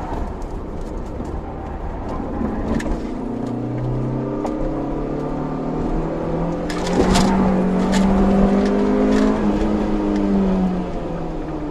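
Honda CRX's four-cylinder engine heard from inside the cabin, driven hard through a cone slalom: revs dip briefly, then climb steadily for several seconds and drop off near the end. A few sharp knocks and rattles come about midway, where it is loudest.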